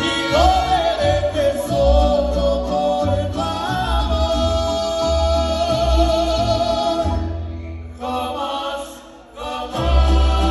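Live mariachi band playing, with a man singing over trumpets, violins and guitars and a pulsing deep bass line. The music thins out about two-thirds of the way through, nearly stops, then the full band comes back in near the end.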